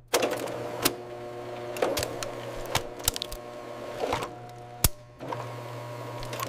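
Softgel capsule encapsulation machine running with a steady low hum and sharp, irregular mechanical clicks and clacks, about one a second.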